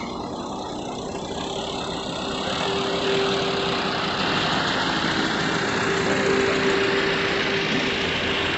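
Truck diesel engine running at idle, a steady drone with a held hum, growing a little louder a few seconds in.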